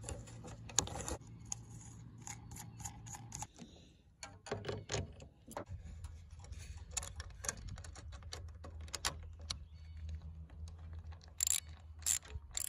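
Scattered clicks and light metallic clatter from handling a small LED light bar, its mounting bracket and bolt hardware. Near the end come a few quick rasping strokes, about two a second, from a socket ratchet.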